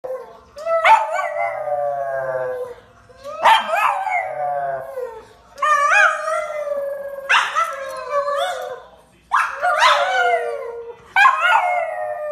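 Pug howling: six long howls in a row, each starting with a quick rise and then sliding down in pitch.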